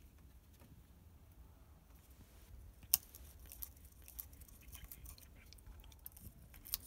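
Cat biting and crunching icicles: a sharp crack of ice about three seconds in, then scattered small crunches and another sharp crack near the end.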